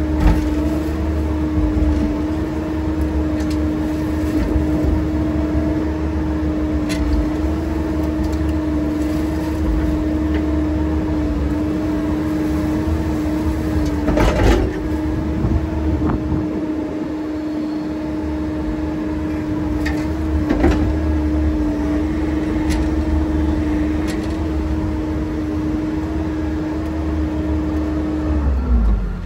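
Heavy equipment's engine running at a steady speed, with a few knocks and clanks, the loudest about halfway. Near the end the engine's pitch drops away as it winds down.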